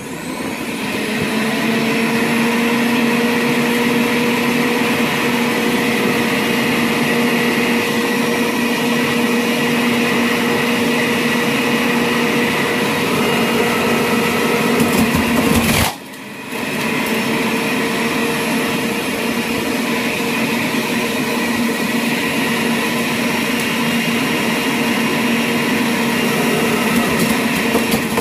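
Centrifugal juicer's motor switched on high, spinning up over the first couple of seconds into a steady high whine as fruit and vegetables are pressed down the feed chute. About halfway through it cuts out for a moment, then spins back up and runs on steadily.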